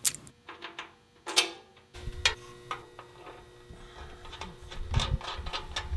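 Small steel bolt, washer and nut clicking and clinking as they are handled and fitted into the steel bumper bracket, with irregular sharp ticks throughout and low knocks from about two seconds in.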